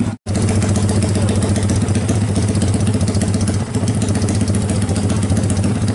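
Yamaha MX King (Jupiter MX) drag bike's single-cylinder four-stroke engine, bored up to 321 cc, idling steadily through a racing exhaust with a fast, even pulsing beat. The sound drops out for a split second just at the start.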